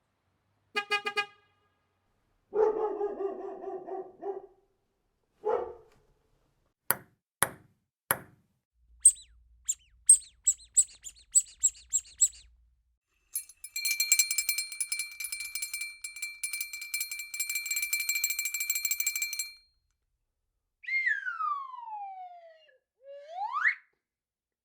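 A string of separate, unrelated sound effects one after another: a few short pitched sounds, three sharp clicks, a run of quick high chirps, a steady pulsing ring lasting about six seconds, and near the end a whistle-like tone that slides down and then back up.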